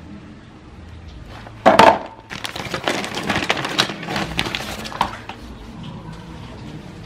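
Clear plastic bag crinkling and crackling as it is handled. A loud sharp rustle comes just under two seconds in, followed by about three seconds of dense crinkling.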